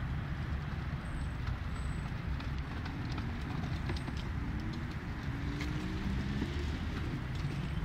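Footsteps on a paved path with faint irregular clicks, over a steady low rumble.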